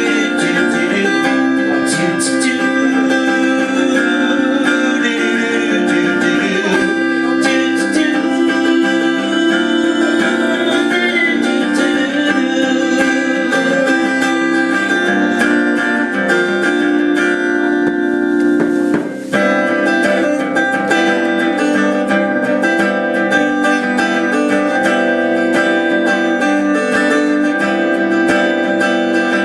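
Acoustic guitar playing a song, its chords ringing on one after another, with a brief drop in level about nineteen seconds in.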